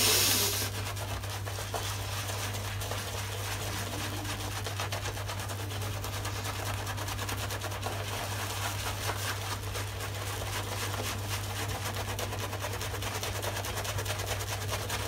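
Boar-bristle shaving brush scrubbed over a lathered face: a steady, dense scratchy crackle of stiff bristles and foam on stubble. The knot is new and not yet broken in, so it is very scritchy. A brief hiss sounds at the start, over a steady low hum.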